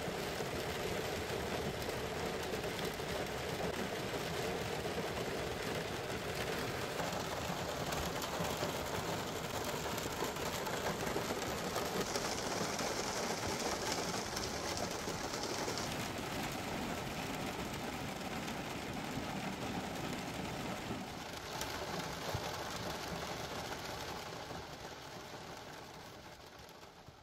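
Steady road noise from a car driving, tyres and engine running evenly, fading out over the last few seconds.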